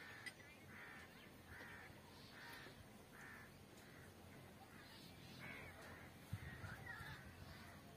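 A crow cawing, a faint series of calls about one a second, pausing briefly after the middle and then calling again.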